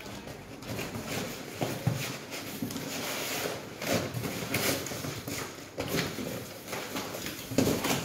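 Cardboard packaging being handled: box flaps and inserts scraping and knocking, with plastic wrapping rustling, in irregular bursts with a few sharper knocks.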